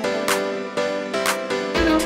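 Instrumental background music: sustained melody notes with a soft beat about once a second.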